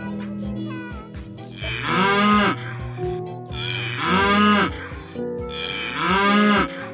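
Cow mooing three times, each call about a second long and about two seconds apart, its pitch rising and then falling, over background music with a steady beat.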